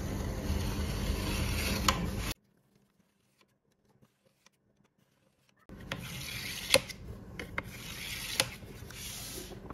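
Kitchen knife cutting through set melon jelly, the blade scraping along the bottom of a metal tray in long strokes, with a few light clicks of the blade. The sound drops out completely for about three seconds in the middle.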